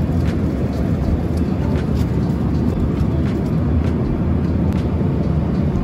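Airliner cabin noise in flight: a steady, loud rumble of the jet's engines and airflow, with a few faint clicks over it.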